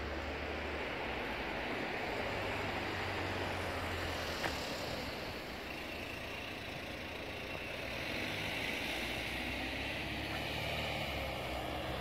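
Road traffic passing: steady engine and tyre noise from cars and a van going by, swelling twice as vehicles pass.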